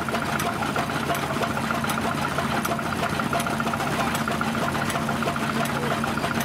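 Vintage stationary engine running steadily with a rapid even beat, driving belt-driven threshing machinery.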